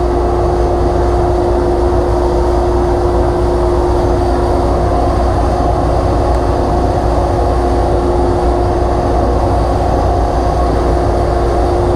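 Dust collector pulling hard through the table saw cabinet with its door shut: a steady rush of air with a steady tone over a deep rumble.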